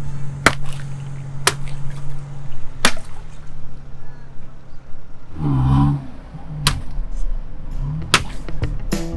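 Water balloons bursting one after another under a car tyre: about five sharp pops spread over several seconds, with a short pitched sound about halfway through.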